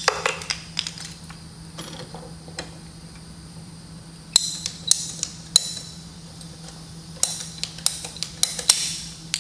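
A hand-held PEX plumbing tool working on red PEX tubing: scattered sharp clicks and creaks, with a few at the start, a cluster about four and a half seconds in and another near the end.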